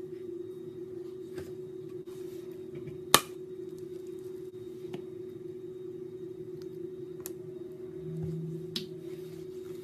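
Scissors snipping open rubber balloons full of glue: several sharp clicks, the loudest about three seconds in. A steady low hum runs underneath.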